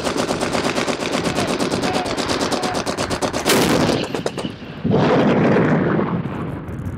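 Soviet D-30 122 mm howitzer firing once, about halfway through: a single sharp blast, followed about a second later by a second loud, lower rush of noise that dies away. Before the shot, a fast run of sharp cracks, about a dozen a second.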